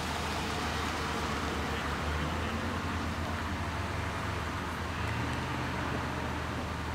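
Steady hum of vehicle engines running, with a constant wash of street traffic noise.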